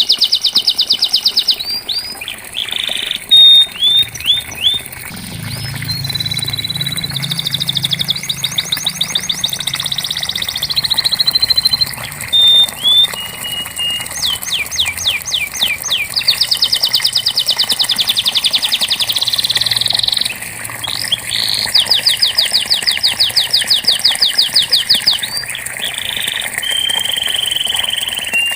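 Domestic canary singing a long unbroken song of fast trills and rolls, switching every second or two between phrases of rapidly repeated notes, some buzzing, some held, some falling.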